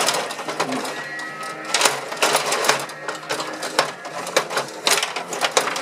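Gretzky rod table hockey game in play: fast, irregular clacking and rattling of the metal rods, spinning plastic players and puck.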